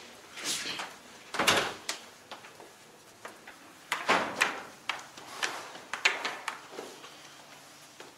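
A heavy door bangs about a second and a half in, followed by a run of quick footsteps on a stairwell.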